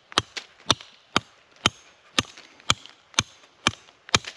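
A small, thin-bladed hatchet chopping into a hard persimmon log to rough out a mallet handle. It makes a sharp knock about twice a second, steady throughout.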